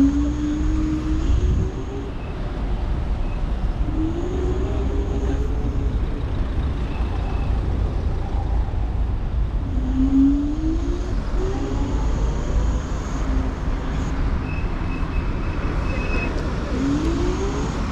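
Dualtron electric scooter riding through city traffic: wind rumbling on the chin-mounted camera mic, and a rising whine four times as the scooter speeds up.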